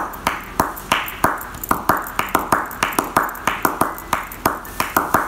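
A massage therapist's hands striking a client's towel-covered leg in rapid percussive massage, making a steady run of slaps about four a second. Some strokes are low and dull, others brighter and higher.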